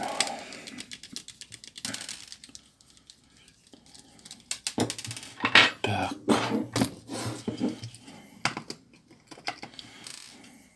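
Irregular small clicks and taps of a precision screwdriver and tiny screws working on a mobile phone's metal and plastic housing, with screws being set down on a hard tabletop, busiest in the middle.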